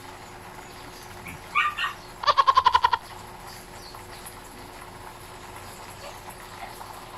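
A goat bleating: two short cries about a second and a half in, then one loud quavering bleat a moment later.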